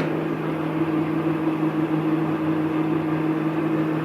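Big 36x144 engine lathe's drive motor and gearbox running at a steady speed: a constant hum with a steady low tone.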